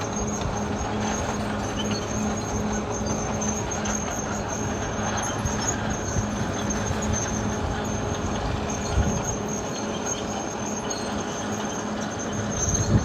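Caterpillar D6R XL crawler bulldozer working, its diesel engine running steadily under load over the clatter of its steel tracks. There are two heavy knocks, one partway through and one near the end.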